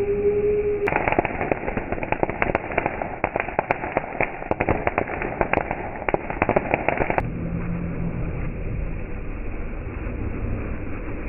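Ground firework fountain crackling: a dense run of sharp pops and crackles starts about a second in and cuts off abruptly about seven seconds in. After it, a low steady rumble remains.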